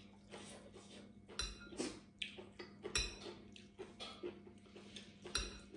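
Metal spoon clinking and scraping in a glass bowl of curry, with several short sharp clinks and a few dull knocks.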